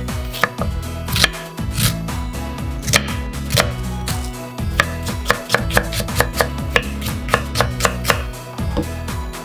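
Tadafusa 170 mm santoku knife cutting onion on a wooden cutting board. First a few separate slicing cuts, then quicker chopping at about three strokes a second as the onion is minced.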